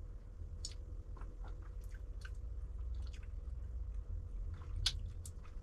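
A person sipping beer and tasting it: soft wet mouth sounds, lip smacks and tongue clicks, scattered through, with a sharper smack a little before the end.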